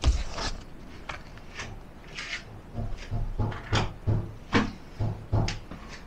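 Handling noises as small objects and paper packaging are moved about on a hard surface: a knock at the start, a short paper rustle about two seconds in, then a run of irregular light knocks and taps.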